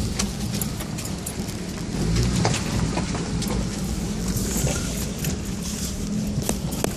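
Vehicle engine running at low speed with a steady low rumble, over frequent clicks, knocks and rattles as it jolts down a rough, rocky track.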